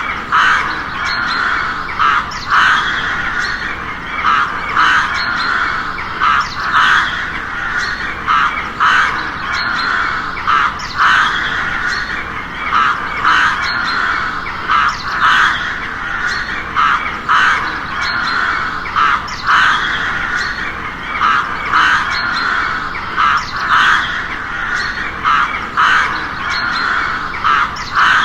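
Crows cawing over and over, harsh calls coming about once or twice a second over a steady background of more cawing, as from a flock.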